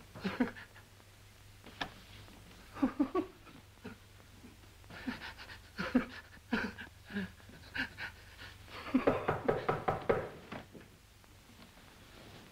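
An old man's breathless panting and giggling in short, wordless bursts, building to a longer run of laughter about nine seconds in.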